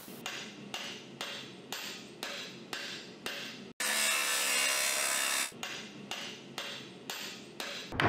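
Sharp hammer strikes at an even pace of about two a second. They are broken near the middle by about a second and a half of an angle grinder cutting steel rebar, a loud steady grinding noise that stops abruptly before the strikes resume.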